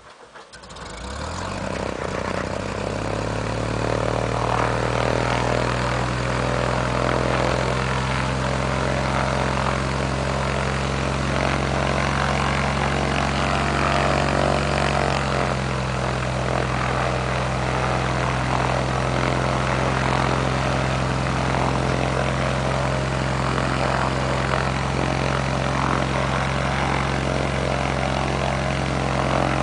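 Cessna 182's six-cylinder piston engine and propeller running steadily on the ground, a steady drone. It swells over the first two seconds or so, then holds even.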